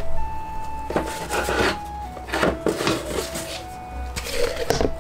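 Light background music with a simple melody, overlaid by a few brief rustling and knocking handling noises.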